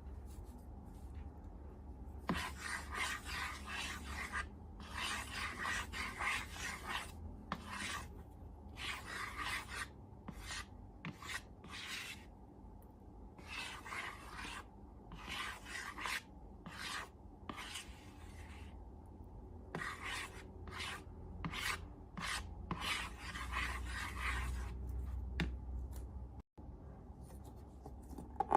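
Repeated scratchy rubbing strokes, coming in irregular runs with short pauses between them.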